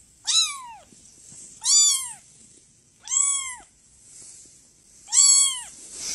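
Young kitten meowing four times, each meow short and high-pitched, rising and then falling in pitch.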